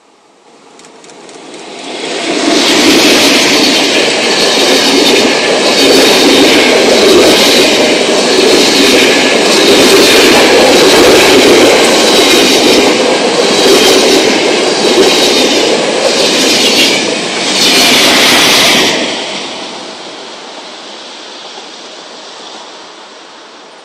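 Passenger train of old carriages hauled by an FS E646 electric locomotive passing close by: the sound builds as it approaches, then a long loud rush of wheels on rail with a repeating clatter over the rail joints. It drops off sharply about nineteen seconds in as the last carriage goes by, and fades away.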